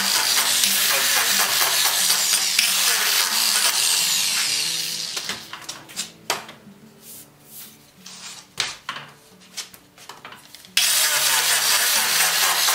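Makita angle grinder running with its disc against a carriage wheel's hard rubber tire, a steady abrasive hiss. About four and a half seconds in it winds down, followed by a few knocks and handling sounds. Near the end the grinding comes back abruptly at full loudness.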